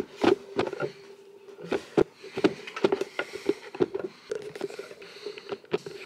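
Handling noise as a camera is repositioned over a wooden table: irregular bumps, taps and rustles, over a faint steady hum.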